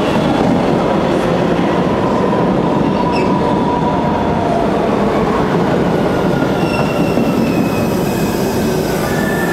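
Boston MBTA Red Line subway train pulling into an underground station: a loud, steady rumble of steel wheels on the rails, echoing under the concrete ceiling. From about six and a half seconds in, thin high wheel squeals join in.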